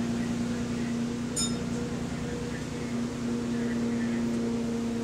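A double-decker bus's diesel engine and drivetrain give a steady drone inside the cabin. About a second and a half in, a single short high ding sounds from the stop-request bell.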